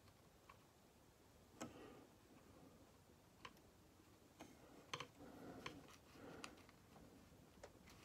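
Near silence, with a small watercolour brush making soft scratchy strokes on paper and a few faint scattered clicks.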